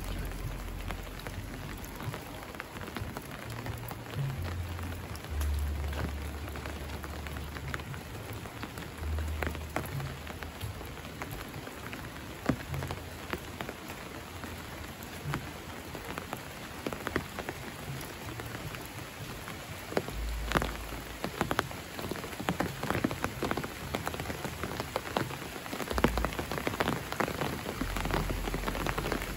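Steady rainfall with many separate close drop hits, growing heavier in the last third.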